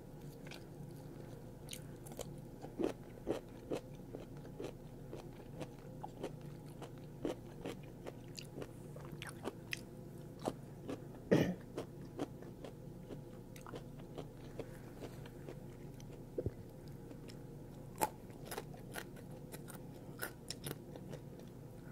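Close-miked chewing and biting of a sub sandwich and curly fries, with sharp crunchy mouth clicks at irregular intervals; the loudest crunch comes about halfway through.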